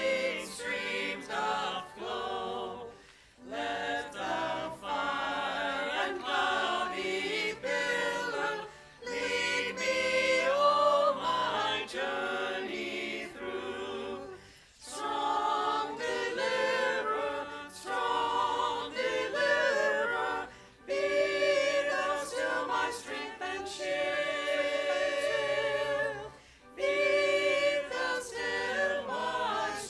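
Many voices singing a hymn together, in lines about six seconds long with brief breaths between them.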